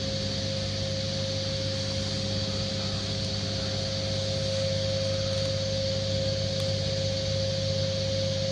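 Steady machine hum of a large hangar hall: a constant low drone with a few held tones and an even hiss, unchanging throughout.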